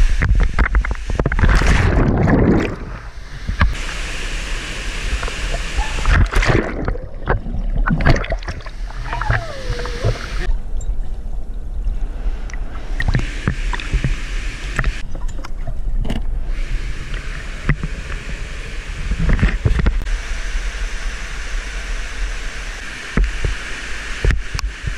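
Splashing and rushing water of a mountain canyon stream as a canyoneer goes through its pools, loudest in a burst of splashing in the first couple of seconds. Several times the sound turns muffled and gurgling while the camera is underwater, the longest stretch a little before the middle.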